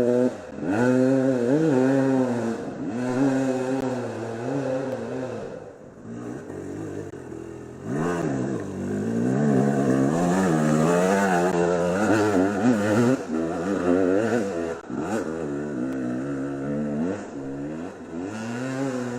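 Two-stroke enduro motorcycle engines revving hard, their pitch rising and falling over and over as the throttle is worked on and off. The revving dips briefly about six seconds in, then picks up again louder for several seconds.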